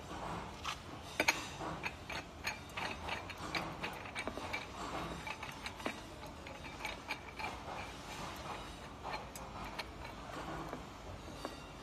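Metal coat stand being assembled by hand: irregular clicks and scrapes of the steel pole sections and chrome ring being fitted and twisted together, several a second, a louder pair about a second in.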